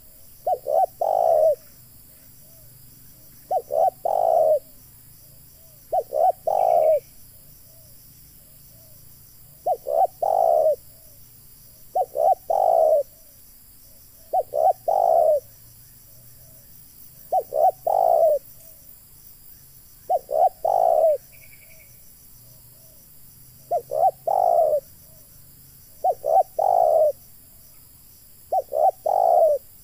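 Spotted dove cooing its song over and over: each phrase is a few short coos and a longer final one, repeated about every two and a half seconds, around a dozen times.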